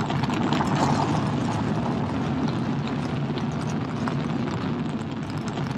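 Sound-effects soundtrack of a simulated Martian surface scene, played over the hall's loudspeakers: a steady noisy wash full of small crackles. It is made from Foley and equalized to match how the rover microphones sounded when tested in a vacuum chamber.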